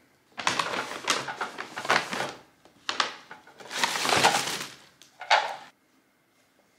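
Brown paper shopping bag rustling and crinkling as hands rummage in it and lift an item out, in several crackly bursts.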